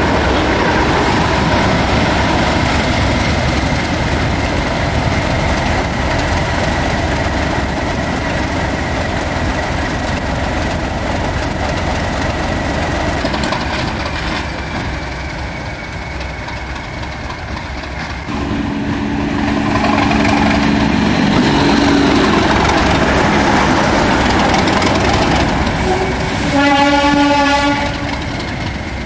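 Train running on the rails, a steady rumble with clickety-clack. About two-thirds of the way in a held two-note tone sounds for a few seconds, and near the end the train gives one short warning blast of about a second and a half.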